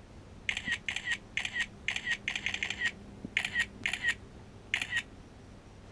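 Phone camera shutter sound firing over and over as photos are taken: short clicks in quick pairs and runs, about a dozen in four and a half seconds, stopping about five seconds in.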